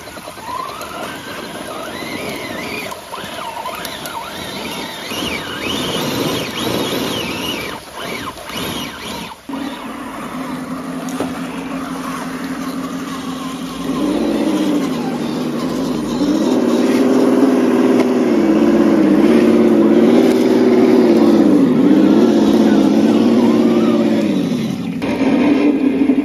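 Electric drive motor and gears of a scale RC crawler truck whining, the pitch swooping down and back up again and again with the throttle; it comes in about ten seconds in and is loudest in the second half. Before that, short high rising chirps over outdoor background noise.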